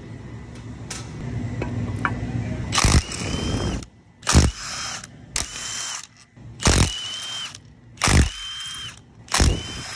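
Cordless power driver with a socket spinning out bolts from an electric motor's housing: six short runs, each opening with a sharp burst and ending in a brief high whine.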